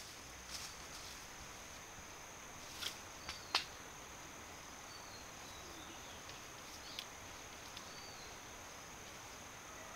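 Steady, high-pitched insect drone of forest ambience, with a few sharp clicks, the loudest about three and a half seconds in, and faint short bird chirps.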